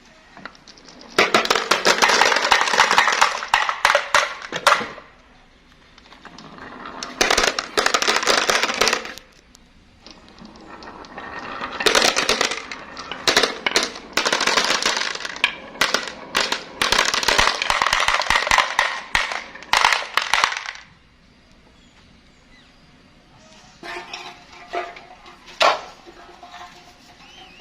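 Marbles rolling and clattering down a marble run: three long runs of dense, rapid clicking, the last the longest, then a few scattered clicks near the end.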